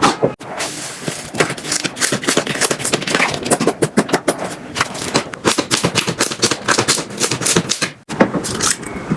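Slime being squeezed and poked, making a rapid, irregular run of crackling clicks and pops. The sound drops out for a moment twice, once near the start and once near the end.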